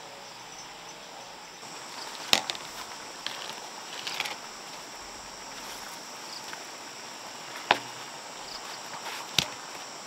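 Steady high insect chirring, with three sharp knocks, about two, seven and a half and nine and a half seconds in, and a short clatter around four seconds in.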